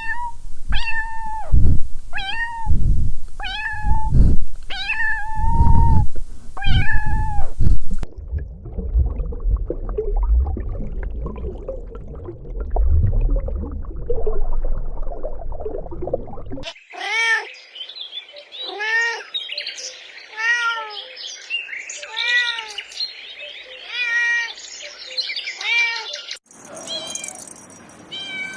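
Kittens meowing. First comes a run of about six loud, drawn-out meows over low thumping noise. Then there are several seconds of low rumbling noise with no calls. After that comes a quicker series of higher, arched mews about once a second.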